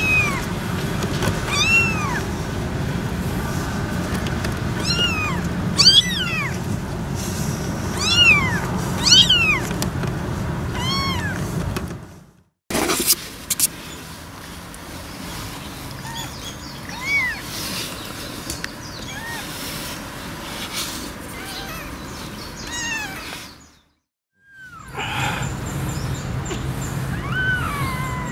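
Newborn kitten mewing: a run of short, high cries, each rising then falling in pitch, coming every second or two and then more sparsely. A steady low hum runs underneath.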